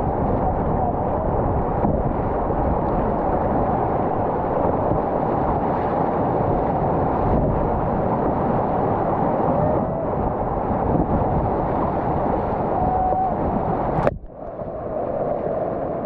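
Steady rushing roar of whitewater rapids around a kayak running them. About fourteen seconds in a sharp click cuts in, the rush drops away for a moment and then builds back up.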